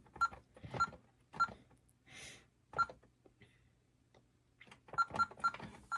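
Home security alarm keypad being keyed, each button press a short click with a brief beep: a few spaced presses, then a quick run of three or four near the end. These are keystrokes of a programming command deleting a wireless zone.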